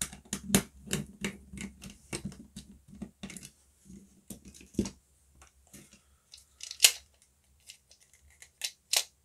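Small screwdriver turning Torx screws out of a plastic Dyson fluffy cleaner head: a quick run of clicks and scrapes for about five seconds. After that come scattered plastic clicks as the parts are handled and pulled apart, with a loud snap about seven seconds in and two more near the end.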